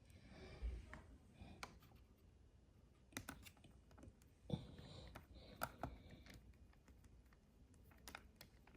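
Faint, scattered small clicks and taps of tiny screws and a screwdriver being handled against a laptop's plastic display housing, irregular, with one sharper tap about halfway through.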